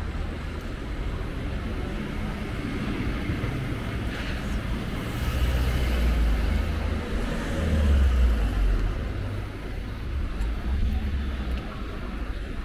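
City street traffic: a steady hum of passing cars. A low engine rumble swells about five seconds in, peaks around eight seconds, then eases.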